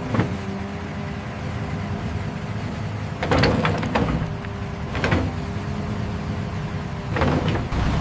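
Diesel engine of a JCB 3CX backhoe loader running steadily, with four short, loud mechanical noises over it: one just after the start, a longer one about three seconds in, then one at about five seconds and one near the end.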